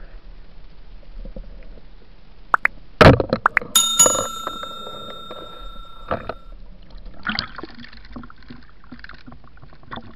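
Sound effects from a subscribe-button animation: a few sharp mouse clicks, then a single bell ding that rings for about two and a half seconds. Faint water noise on the underwater camera sits under and after them.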